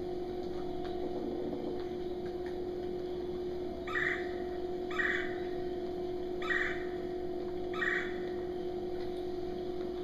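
Recorded red-bellied woodpecker calls played through classroom speakers: four short calls about a second or so apart, starting about four seconds in, over a steady electrical hum.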